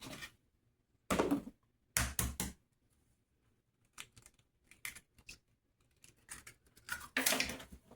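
An egg tapped sharply two or three times against the rim of a mixing bowl to crack it, followed by softer clicks and a clatter as the shell is handled.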